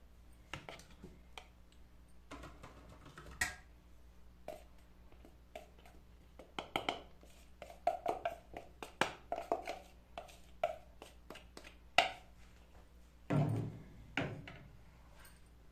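Plastic mixing bowls and a wire whisk being handled: scattered light taps and knocks as sifted flour is tipped from one plastic bowl into another and the bowl is tapped to empty it. A sharper knock comes about twelve seconds in, with a few duller thumps just after.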